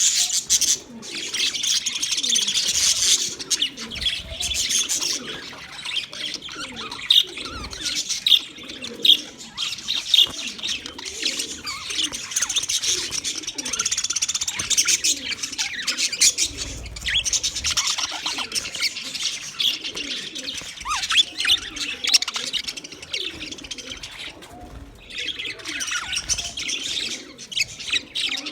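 A group of budgerigars chirping and chattering without a break, a dense run of quick high chirps with lower warbling notes underneath.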